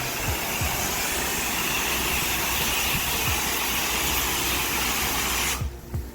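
Pressure washer wand spraying water in a steady hiss over the low, steady running of the pressure washer's engine. The spray cuts off suddenly about five and a half seconds in, leaving the engine running alone.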